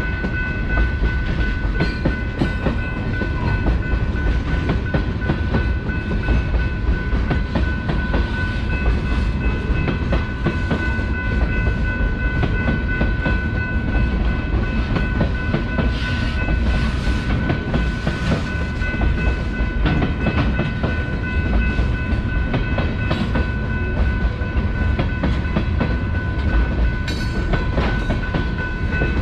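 Freight train of tank cars rolling through a grade crossing, a steady low rumble with wheels clacking over the rail joints. A steady high-pitched tone rings over it.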